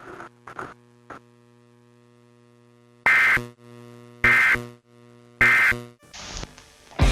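Three loud, short Emergency Alert System end-of-message data bursts, harsh digital screeches about a second apart, marking the end of the cable override test. A steady mains hum runs underneath.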